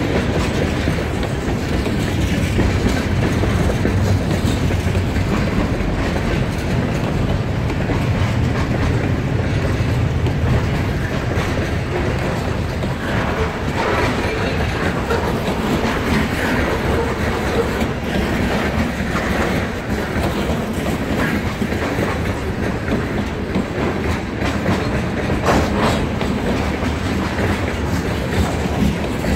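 Freight cars (tank cars and covered hoppers) rolling past: a steady rumble of steel wheels on the rails, with the clatter of wheels passing over rail joints.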